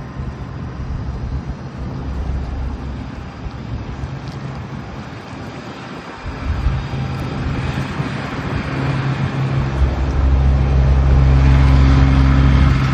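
A vehicle's engine running steadily with a low hum, growing louder near the end.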